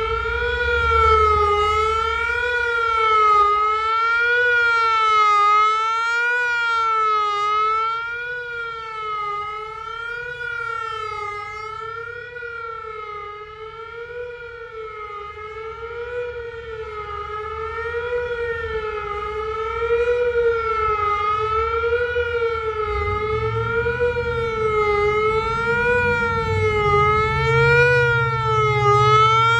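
Whelen WPS-3000 electronic outdoor warning siren sounding the Attack signal: a wavering wail whose pitch rises and falls about once a second. It fades somewhat in the middle and swells back to full loudness after about twenty seconds.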